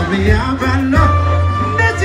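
Live Oromo music: singing over a steady deep bass and an even drum beat, with a note held for nearly a second midway.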